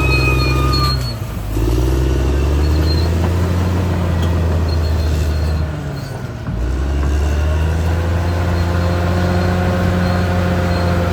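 Caterpillar D6R XL bulldozer's diesel engine running steadily, briefly dropping in level about a second in and again around six seconds in.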